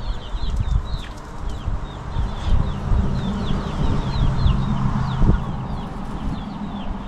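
Chickens clucking and chirping, with many short, high, falling chirps repeating several times a second over a low rumble that swells in the middle.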